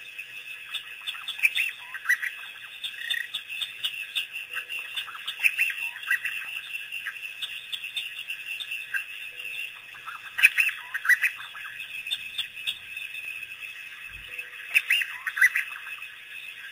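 African wild dogs twittering: a pack's high-pitched, bird-like chirps and squeaks, coming in quick clusters, loudest about two-thirds of the way in and again near the end.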